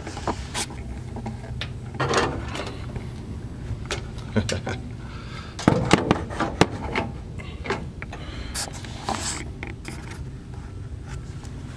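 Handling noises from a vending coin box and a zippered cash bag full of change: scattered clicks, knocks and rubbing, with a cluster of louder knocks about six seconds in.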